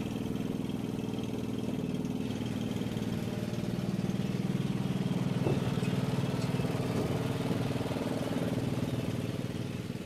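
Troy-Bilt TB30R riding mower's Briggs & Stratton OHV engine running steadily, a little louder from about four seconds in and easing off near the end.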